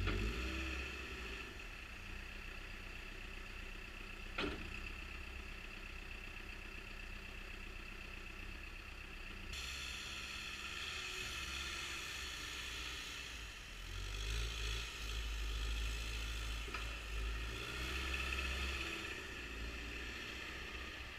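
Caterpillar 420E backhoe loader's diesel engine running steadily, with a sharp knock about four seconds in. The engine grows louder and rumbles harder for several seconds past the middle, then eases back.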